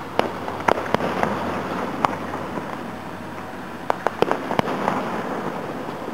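Aerial fireworks shells bursting about a quarter mile away: several sharp bangs in the first two seconds, then a quick run of four about four seconds in, over a steady background hiss.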